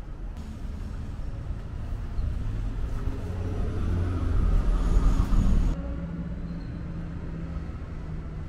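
Generac Guardian 14 kW air-cooled standby generator's G-Force engine running steadily with a low hum, its output being checked. The sound is louder and fuller from about half a second in until near six seconds, then drops back to the steady hum.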